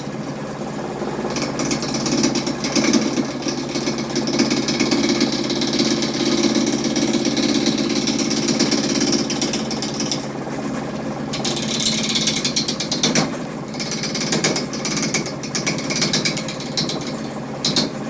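Harbor Freight wood lathe running with a steady motor hum while a hand chisel cuts into the spinning workpiece, giving a rough, chattering scrape in long stretches with brief letups.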